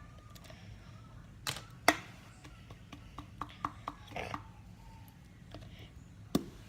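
Scattered clicks and light taps of a plastic glue bottle and plastic container being handled: two sharper clicks about a second and a half in, a run of fainter ticks after, and one more click near the end.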